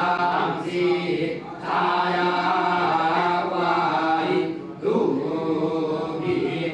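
A group of men chanting Vedic Sanskrit verses in unison through microphones, in long held lines that break briefly for breath twice.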